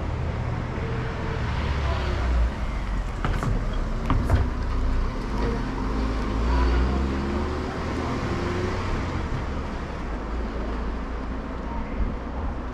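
Street traffic: a steady low rumble of passing motor vehicles, with a few sharp clicks about three to four seconds in.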